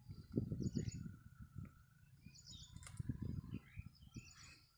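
Small birds chirping, over low rustling and crackling in two stretches as the bottle-gourd vine is handled and the fruit cut free.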